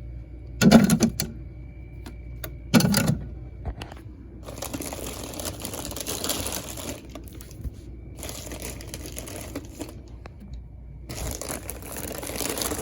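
Plastic water bottles being handled and stacked into a mini fridge: two knocks in the first three seconds, then long stretches of crinkling plastic.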